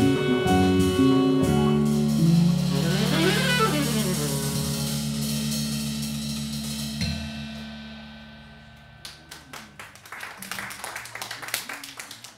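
Jazz quartet of saxophone, keyboards, bass and drums ending the tune on a final held chord that rings and fades away. About nine seconds in, scattered audience applause starts.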